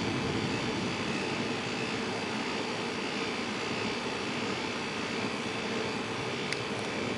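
A steady rushing noise with no clear rhythm, broken by one sharp click about six and a half seconds in.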